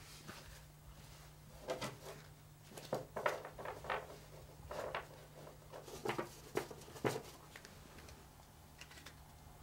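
Deck of playing cards being handled: a run of soft, irregular shuffling and tapping strokes over several seconds, over a steady low hum.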